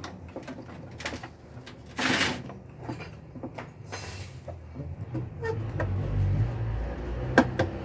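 Hard plastic parts clicking and scraping as a replacement washing-machine actuator is pushed into its mounting: scattered clicks, a short scrape about two seconds in and a sharp click near the end, with a low rumble in the last couple of seconds.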